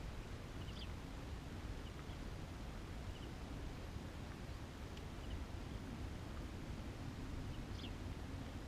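Steady low outdoor background rumble, with a few faint short high chirps from a bird about a second in and again near the end.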